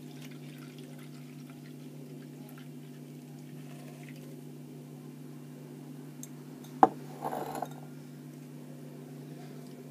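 Filtered solution dripping faintly through a paper filter into a glass beaker over a steady low hum. About seven seconds in comes one sharp glass clink, followed by a brief scrape, as a glass beaker is set down on the wooden table.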